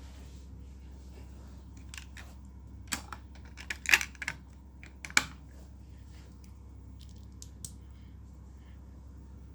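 Plastic Lego pieces clicking and tapping as they are handled and fitted, in a short irregular run of sharp clicks with a few fainter ticks near the end, over a low steady hum.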